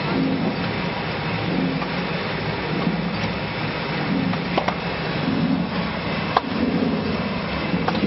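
Stainless-steel passion fruit juice extractor running steadily as it separates juice from seeds and peel, with a few sharp clicks, the loudest about six seconds in.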